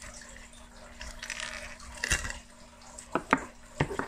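Small plastic parts being handled as a battery pack is worked loose from the plastic base of a hydrogen water bottle: a soft scrape, a sharp click about halfway, then a few quick clicks and taps near the end.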